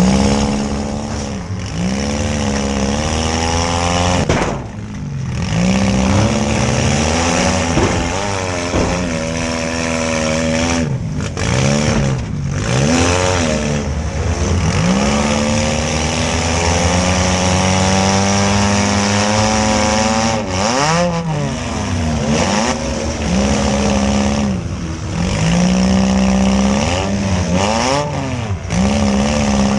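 Demolition derby compact car's engine revving hard, its pitch climbing and falling again and again as the car accelerates, backs up and changes direction.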